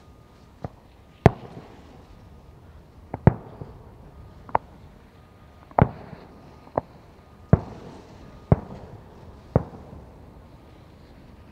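Aerial firework shells bursting: about ten sharp bangs at irregular intervals, some close together in pairs, each trailing off in a short echo.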